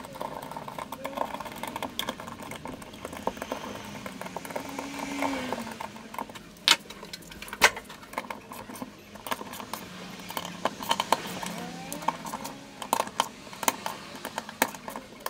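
Small metal parts and hand tools clinking and tapping during workshop work, with two sharp knocks about a second apart midway.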